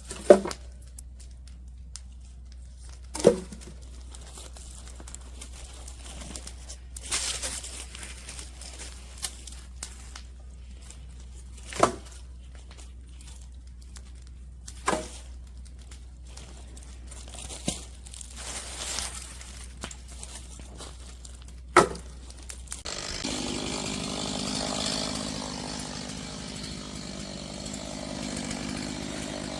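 Sharp knocks a few seconds apart, then, from about two thirds of the way in, a chainsaw running steadily while cutting up firewood poles.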